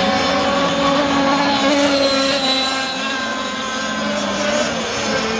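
Several 26–35cc two-stroke petrol engines of radio-controlled racing boats running together, a buzzing drone of overlapping pitches that drift slightly up and down as the boats race round the course.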